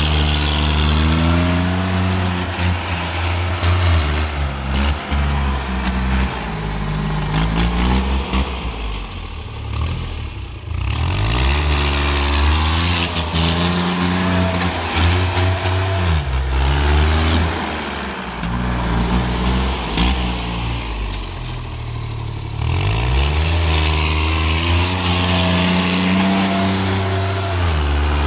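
Sonalika compact tractor's diesel engine revving hard under load, its pitch climbing, holding high for a few seconds and dropping back several times.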